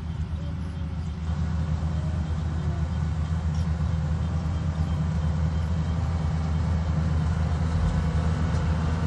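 Engine running steadily with a low, even hum, getting slightly louder about a second in.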